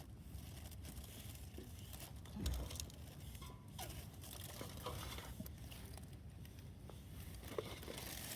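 Faint crinkling and rustling with scattered small clicks, a few short squeaks in the middle, and one louder rustle about two and a half seconds in.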